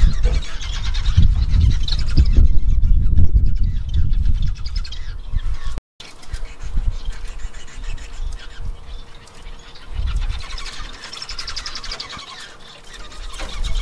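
Bengalese finches chirping and calling. A loud low rumble runs under the first five seconds, and the sound drops out for a moment about six seconds in.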